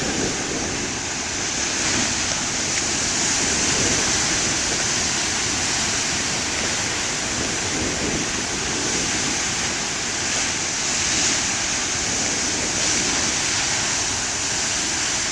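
Large ocean waves breaking on a beach: a continuous rushing surf that swells a little louder now and then.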